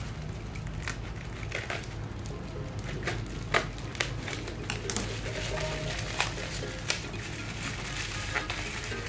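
Bubble wrap and plastic packaging crinkling and crackling as a parcel is cut open with scissors and pulled apart, with scattered sharp snaps and clicks. Background music plays underneath.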